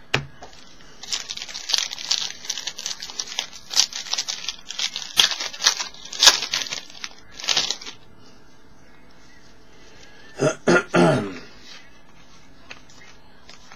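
Foil trading-card pack wrapper being torn open and crinkled, a dense run of quick irregular crackles lasting about seven seconds. About ten seconds in, three short coughs follow in quick succession.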